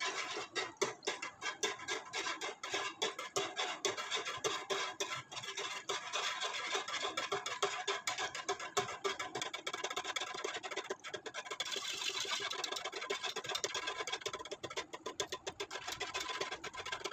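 Metal wire whisk scraping and clicking against the side and bottom of a pot in quick, rhythmic strokes, stirring jelly powder into water.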